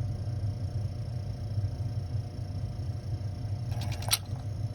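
Bell & Gossett circulator pump's electric motor running with a steady low hum. A short burst of clicks comes near the end.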